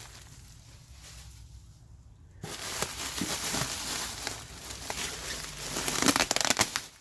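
Packing material being handled and crinkled while parts are unwrapped. It is quiet at first, then from about two and a half seconds in comes a dense crackling rustle that is loudest near the end and stops abruptly.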